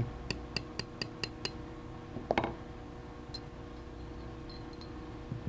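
Small hammer tapping the metal stem of a brass ball valve, seven light clinking taps at about four a second, driving the stem out of the valve body. A single louder knock follows about two seconds in, then a few faint clicks.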